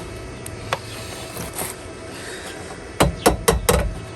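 A quick run of five sharp knocks about three seconds in, over a faint steady hum.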